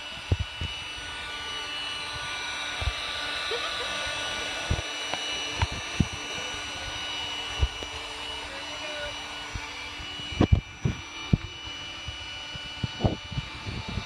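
Electric air pump running steadily with a constant whine, inflating an inflatable raft through its valve. A few short knocks and bumps from handling the raft and pump break in now and then.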